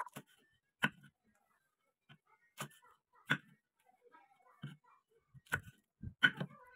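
Knife chopping large green chillies on a wooden cutting board: about eight short, sharp knocks at uneven intervals, roughly one a second, the loudest near the end.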